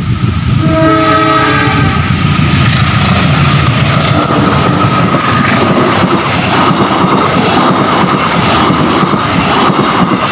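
CC203 diesel locomotive horn sounding a long blast starting about a second in: signal 35, a warning to someone about to cross the line. Then the passenger train's carriages run past close by, wheels clattering over the rail joints.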